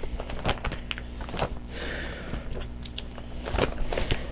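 Pokémon trading cards being handled and sorted: irregular small clicks and rustles of card stock. A steady low hum runs underneath.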